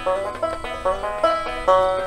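Five-string banjo picking a bright run of plucked notes over acoustic guitar accompaniment, a folk band playing an instrumental passage in a steady beat.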